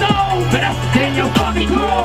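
Live hip-hop performance: rapping over a loud backing beat with deep, sustained bass notes.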